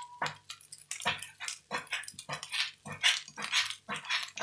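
A dog barking in a quick, repeated series, roughly three short barks a second.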